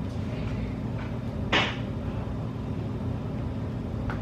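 A single short clack about a second and a half in, from containers or utensils handled while plating food, over a steady low background hum. A faint click follows near the end.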